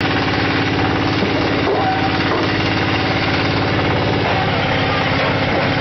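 The diesel engine of a QTF4-28 block-making machine running steadily with a fast, even chugging.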